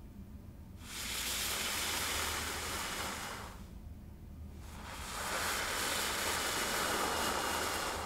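A person blowing hard, a long steady rush of breath, twice: about three seconds each with a short pause between.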